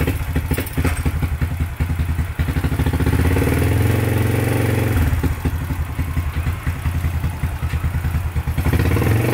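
Honda XRM 125's single-cylinder four-stroke engine starting and running, with the throttle held up for a couple of seconds about three seconds in, then dropping back and rising again near the end, as the carburettor is being tuned.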